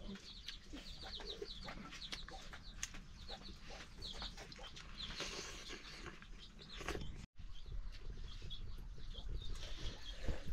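Chickens clucking amid many short, high chirps.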